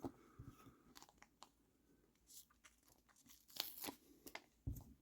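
Faint peeling and crinkling of a small sticker being pulled off its backing sheet, with light scattered clicks of handling, loudest a little past halfway.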